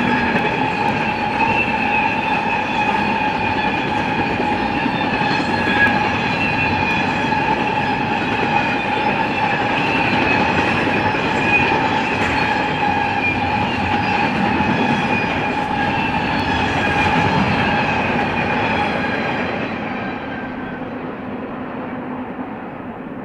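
Double-stack intermodal container cars of a freight train rolling past: a steady rumble and clatter of wheels on rail with a steady high-pitched whine over it. The sound fades near the end.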